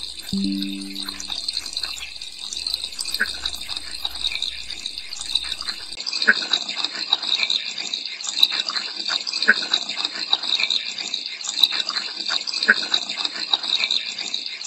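Steady rushing hiss of running tap water used as a white-noise source for spirit-box listening, with a short low tone at the very start. About six seconds in, its deepest and highest parts drop away abruptly as it is filtered, leaving a narrower hiss flecked with faint crackly fragments.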